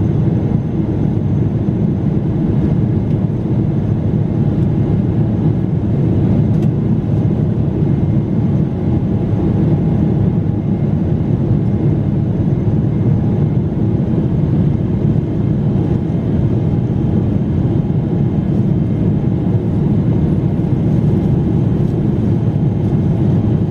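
Steady roar of a Boeing 777-300ER's GE90 engines and airflow, heard from inside the passenger cabin, with a few faint steady tones above it.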